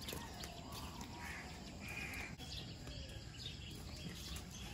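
Faint rural background ambience with a couple of short, distant bird calls about a second and two seconds in.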